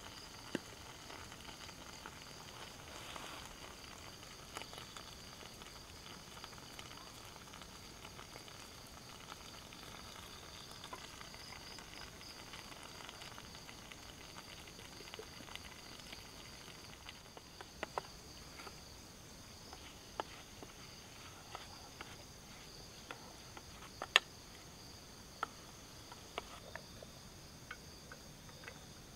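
Night insects, crickets, chirping steadily in a high, even chorus. A few sharp light clicks of cookware come in the second half.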